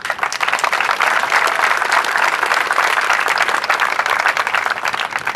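Audience applauding: many hands clapping at once, starting suddenly and thinning out near the end.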